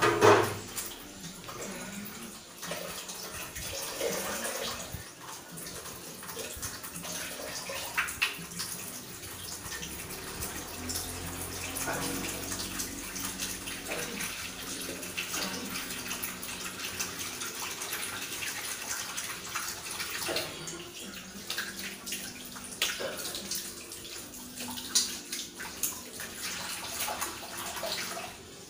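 Grated coconut squeezed by hand over a strainer, the coconut milk splashing and trickling into a metal cooking pot, with small clicks of the strainer against the pot. A loud knock comes right at the start.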